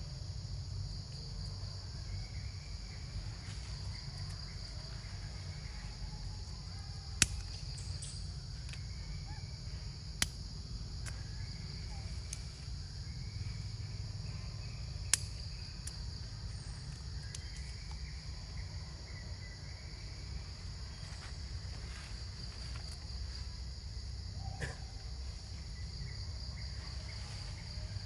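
Steady high insect chorus with a fine pulsing texture, over a low rumble. Three sharp clicks stand out, about 7, 10 and 15 seconds in.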